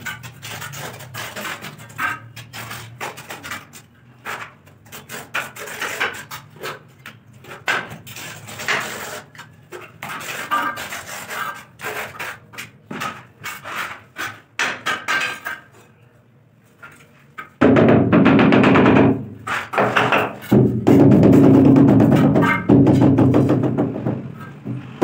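Steel trowel scraping and slapping wet cement mortar onto the back of a ceramic wall tile: irregular short scrapes and knocks. About 18 s in, loud music with percussion starts and covers everything.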